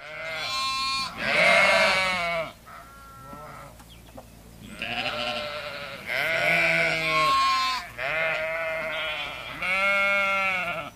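Sheep and goats of a grazing flock bleating again and again: about half a dozen long, wavering calls, some overlapping, with a fainter call in the short lull about three seconds in.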